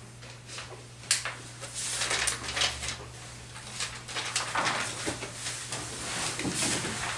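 Clicks and rustles of handling, among them a plastic water bottle being capped and set down, over a steady low hum. The sharpest click comes about a second in.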